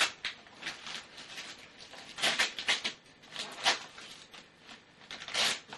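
Wrapping paper rustling and tearing in several short, irregular bursts as a present is unwrapped, loudest a couple of seconds in and again near the end.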